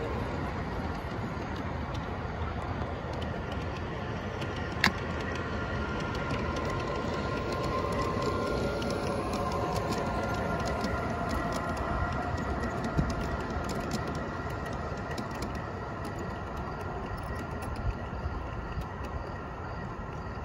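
Aristocraft G-scale Dash 9 model diesel locomotive and its cars rolling along the garden-railway track, a steady rumble of wheels on rail. A high steady whine joins the rumble from about five seconds in and fades near the end, and there is one sharp click about five seconds in.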